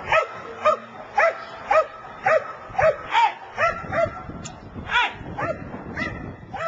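Young protection-training dog barking over and over on the leash at a helper with a bite sleeve, about two barks a second, spacing loosening slightly near the end: agitated protection-work barking.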